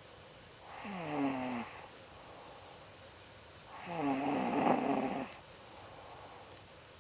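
Snoring in a steady rhythm: two snores about three seconds apart, each sliding down in pitch, the second longer and louder than the first.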